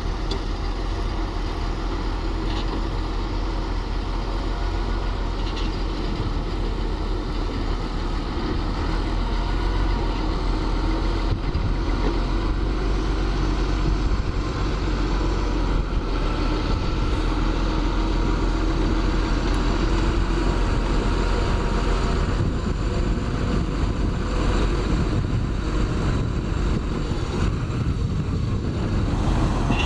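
Heavy diesel construction machinery running steadily, with a constant engine drone and a deep rumble.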